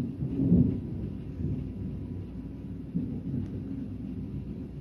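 Rolling thunder rumbling low, with a fresh swell about three seconds in, then slowly fading.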